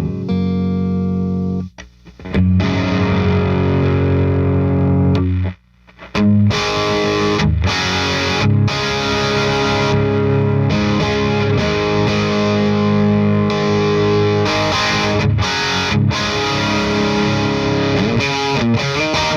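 Overdriven electric guitar, a Gibson Les Paul Tribute with P90 pickups played through a Satellite Neutron amplifier. Sustained chords break off briefly about two seconds in and again near six seconds, then the playing runs on without a pause.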